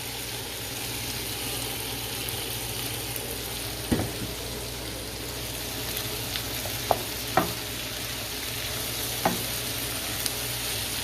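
Chicken pieces and shrimp sizzling steadily in a hot pan as they are stirred together, with a few sharp clicks of the utensil against the pan.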